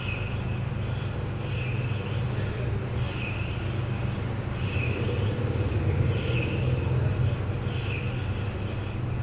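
Clothes dryer running: a steady low hum with a higher swishing sound that recurs about every second and a half.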